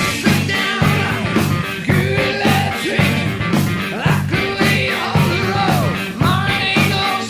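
Background rock music with a steady drum beat and a bending lead melody.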